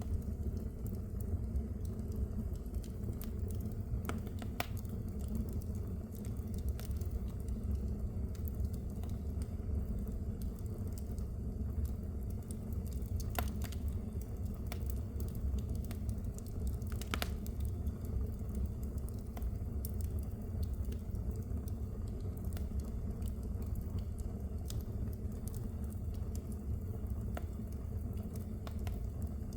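Wood fire crackling in a fireplace: a steady low rumble of burning with scattered sharp pops and snaps, a few of them louder.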